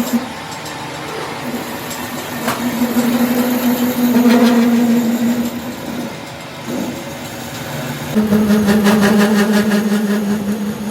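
A workshop machine running with a steady hum that stops and starts. About eight seconds in, a fast, even rattling joins it.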